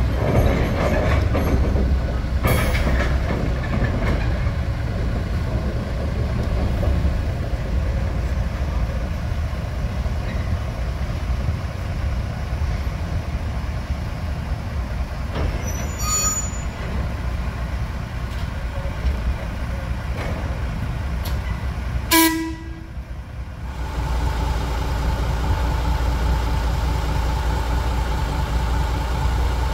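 GE 25-ton diesel switcher locomotive running with a steady low engine drone as it moves slowly onto a turntable. About 22 seconds in there is a brief sharp sound, then a steadier pitched hum for the last few seconds.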